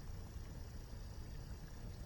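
Campfire burning with a few faint crackles over the steady low rush of a waterfall.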